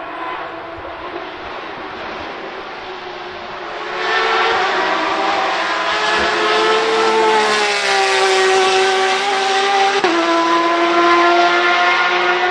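Porsche 911 RSR race car's 4.0-litre flat-six running on open exhaust at racing speed. It gets much louder about four seconds in, its pitch climbs and then drops as it goes through the corner, and a brief crack comes near the end, after which it holds a steady note.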